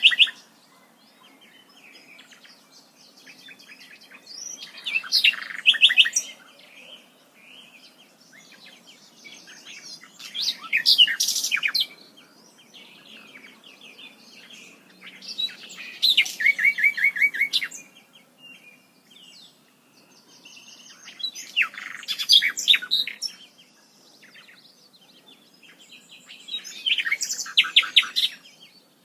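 A bird singing the same kind of loud phrase about every five to six seconds, six times, each phrase lasting about two seconds and made of fast trills, with fainter chirps in between.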